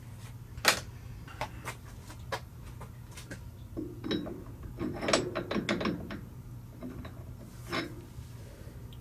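Metal clicks, clanks and ratcheting at a metal lathe as a part is clamped and adjusted in a four-jaw chuck, with a dense run of clicks in the middle, over a steady low hum.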